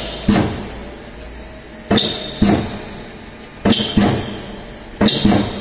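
Yamada Dobby A-30H 30-ton high-speed stamping press cycling one stroke at a time: each stroke is a pair of sharp metallic clanks about half a second apart, a new pair roughly every one and a half seconds, over a steady low machine hum.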